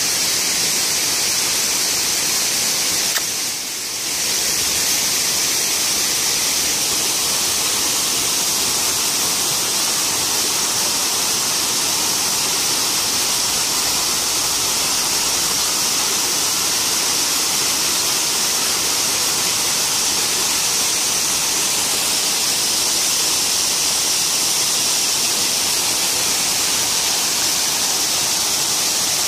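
Waterfall cascading over a volcanic-rock wall into a pond: a steady rush of falling water, dipping briefly about three seconds in.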